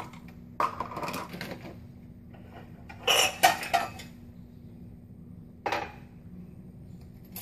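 Dishes and cutlery clinking and clattering while coffee is made, in three separate bursts: about a second in, a sharper run of clinks around three seconds in, and a short one near six seconds. A faint steady hum runs underneath.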